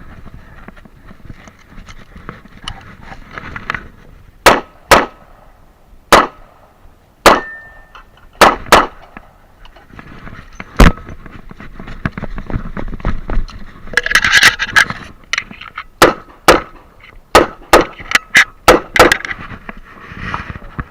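Revolver gunshots from a Smith & Wesson Model 66 stainless double-action revolver. They come as a string of spaced shots, then a pause with some clattering handling noise, then a quicker string of shots near the end.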